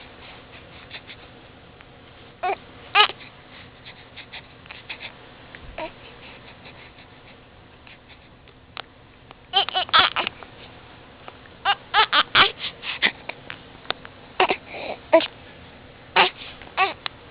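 A young infant, about one and a half to two months old, crying in short fretful bursts that come in clusters with quiet gaps between, upset by a bout of hiccups.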